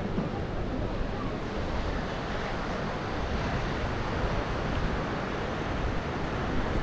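Steady rushing of wind on the microphone mixed with surf washing onto a rocky shore.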